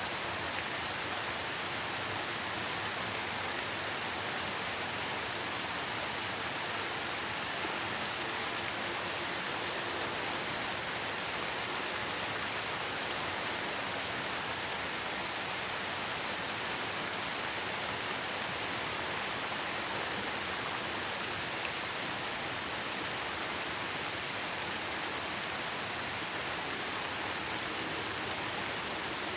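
Steady rainfall: an even hiss of rain with faint scattered drop ticks, unchanging throughout.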